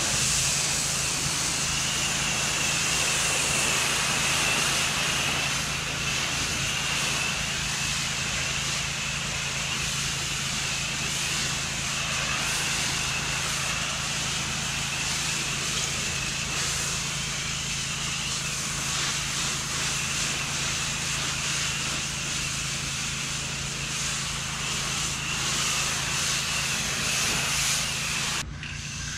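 Pressure washer running steadily, its engine drone under the loud hiss of the high-pressure water jet from the wand blasting grime off concrete. The spray cuts out for a moment near the end while the engine keeps running.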